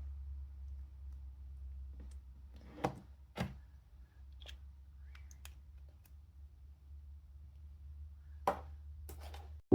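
Small plastic clicks and taps from handling a speedcube and a lube bottle while applying drops of lubricant, four of them louder than the rest, over a steady low hum.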